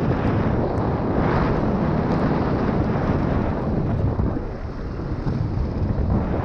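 Wind buffeting the microphone at downhill speed, over a steady rumble of mountain bike tyres and chassis rattling across a dirt and gravel trail, easing briefly about five seconds in.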